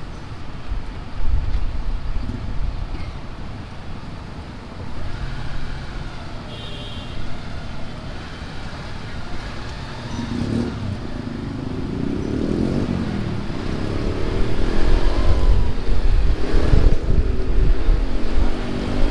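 Jeepney engine and road noise heard from aboard the moving vehicle: a steady low rumble, then from about ten seconds in the engine revs up again and again, its pitch climbing and the sound getting louder as the jeepney accelerates.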